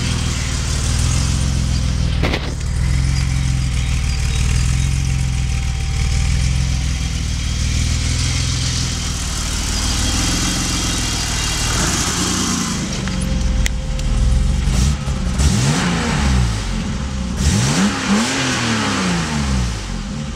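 BMW E30's swapped-in M30B35 3.5-litre inline-six idling steadily, then revved twice in the last third, the pitch rising and falling with each blip.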